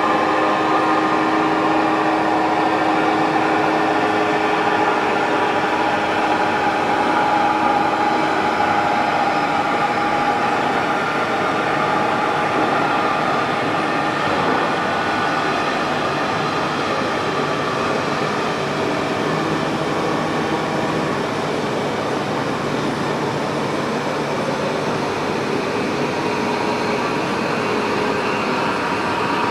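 WMW Niles DP1 facing lathe running: a steady mechanical hum with several steady tones over a rushing noise, the tones fading about a third of the way through.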